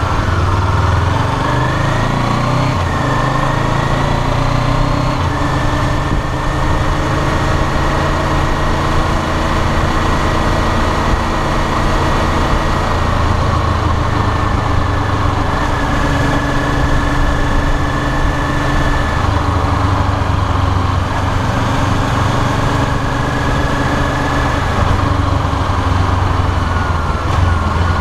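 Honda CBR500R's parallel-twin engine running under way, heard from a camera mounted on the fuel tank. The engine pitch climbs in the first couple of seconds, holds fairly steady, and falls near the end as the bike slows.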